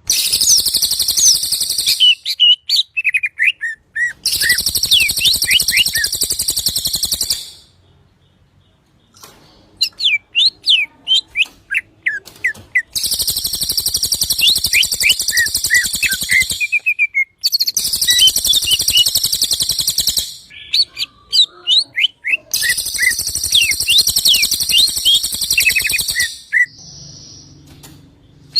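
Songbird 'rol tembak' song of the kind used as a masteran training track: bursts of sharp, quick chirps alternating with long, dense, high buzzing rolls of two to four seconds, five rolls in all. There is a brief quieter lull about eight seconds in.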